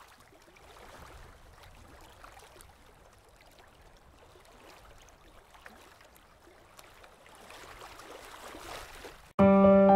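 Faint, even rushing noise with scattered small ticks that swells slightly near the end, then piano music cuts in suddenly just before the end.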